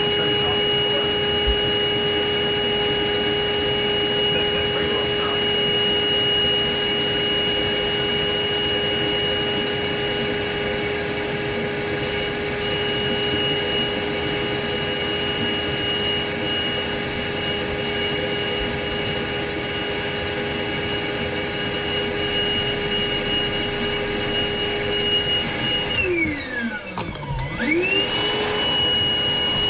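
Wet/dry shop vacuum running steadily with a high whine while sucking water out of the plumbing lines. Near the end its motor pitch drops sharply and climbs straight back up to full speed.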